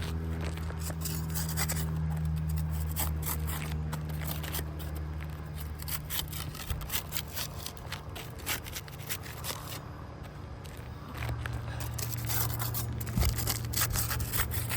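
Putty knife scraping under 3-tab asphalt shingle tabs, breaking their adhesive seal strips loose in a string of short, sharp scrapes and crackles.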